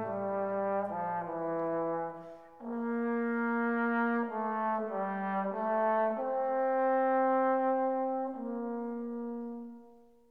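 Background music: a slow melody of long held brass notes, fading out near the end.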